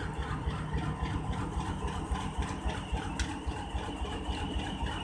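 Diesel engine of a Pakistan Railways HBU20-class (GE U20C) diesel-electric locomotive running with an even, rhythmic throb over a deep rumble. A single sharp click about three seconds in.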